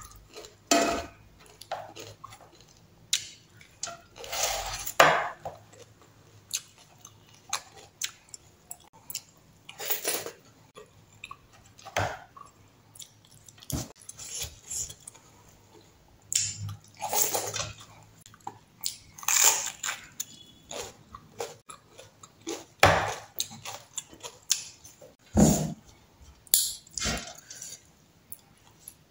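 Close-up eating sounds: crunchy bites and chewing of raw green chilli and rice, with irregular clicks of fingers and food against a metal plate.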